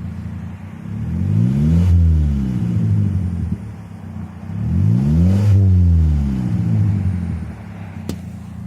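First-generation Mazda 3's four-cylinder engine, its muffler cut off and the rest straight-piped, idling and then revved twice, the pitch rising and falling each time before settling back to idle. One sharp pop near the end.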